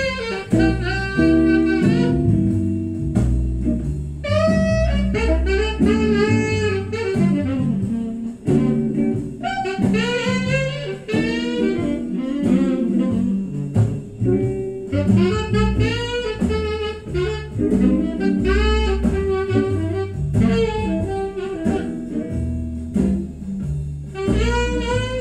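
Jazz playing from a vinyl record on a Verdier turntable with an Ortofon SPU Classic cartridge, reproduced through Avantgarde horn loudspeakers in the room. A saxophone carries the lead line over bass and guitar.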